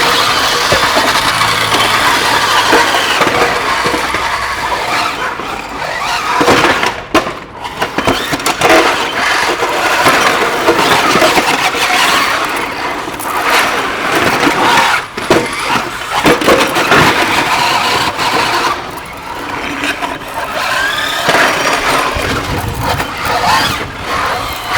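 Small combat robots fighting: electric drive motors whine and rise and fall in pitch as they speed up and slow down. There is scraping and squealing, and repeated bangs and knocks as the robots hit each other.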